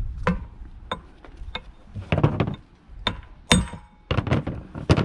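Irregular metal clinks and knocks from steel U-joint parts and hand tools being handled against a driveshaft yoke. The loudest comes about three and a half seconds in and rings briefly, like metal on metal.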